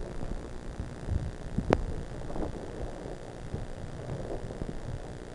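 Low, muffled rumble of wind and snow buffeting a helmet camera's microphone while skiing through deep powder. One sharp click about a second and a half in.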